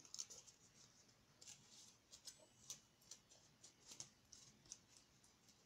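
Near silence with faint, scattered ticks and crinkles of sticky tape and paper being handled.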